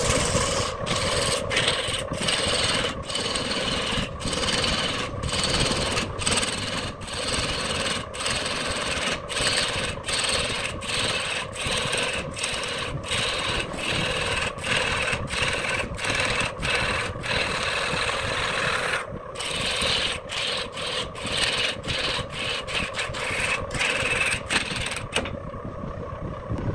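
Turning gouge cutting into a log blank spinning on a wood lathe: a rough scraping hiss that breaks off briefly about twice a second as the tool takes repeated cuts, with a longer pause about two-thirds of the way through. A steady hum from the lathe runs beneath the cutting.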